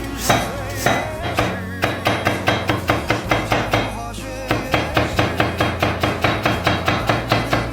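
Kitchen knife chopping vegetables on a cutting board: a few spaced strikes, then quick even chopping at about four or five strokes a second, with a short pause about four seconds in.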